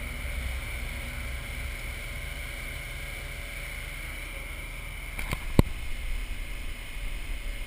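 A steady low rumble, broken about five seconds in by two sharp knocks a moment apart as a hand grabs the door-mounted camera.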